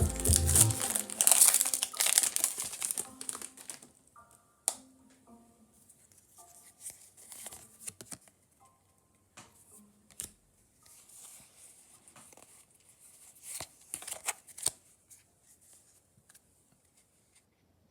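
Foil wrapper of a Pokémon booster pack crinkling and tearing open, dense and loud for the first three seconds or so, then softer scattered crinkles and clicks as the pack and cards are handled.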